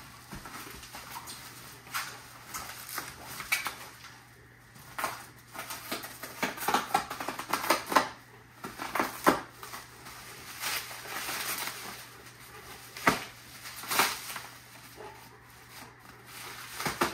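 Plastic packing wrap crinkling and tearing by hand in irregular bursts, with a few sharper rips.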